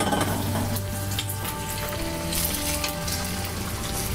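Beaten egg and green onion frying in hot oil in a wok, a steady crackling sizzle as it is stirred with a wooden spatula.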